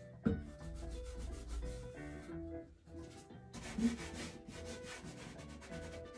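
Flat metal paint scraper dragged across wet acrylic paint on a painting panel: a quick run of rough scraping strokes, with a short pause about halfway through.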